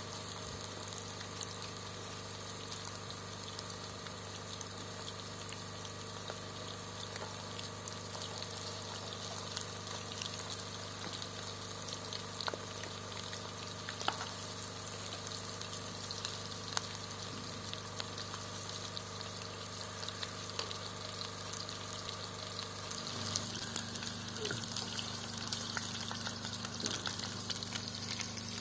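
Food frying in hot oil in a pan: a steady sizzle with scattered crackles and pops.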